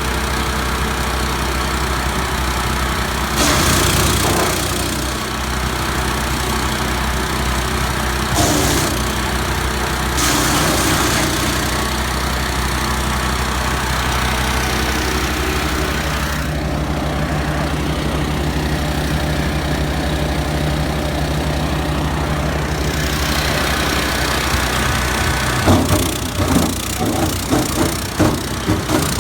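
A wood chipper shredder's 15 HP 420 cc Loncin single-cylinder petrol engine running steadily, with two louder, harsher stretches about 4 and 9 seconds in. Near the end comes a rapid run of sharp cracks and knocks as wood goes through the cutter.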